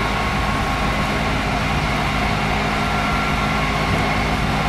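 Small miniature-railway diesel locomotive, its engine idling steadily.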